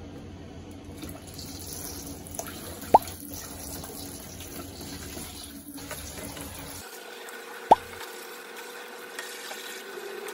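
Tap water running into a kitchen sink as dishes are washed, a steady hiss whose tone changes abruptly about seven seconds in. Two short, rising pops cut through it, about three seconds in and again near eight seconds.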